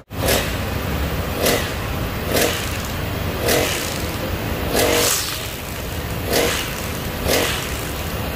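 Honda brush cutter's small four-stroke engine running, its throttle blipped in short surges about once a second over a steady low idle.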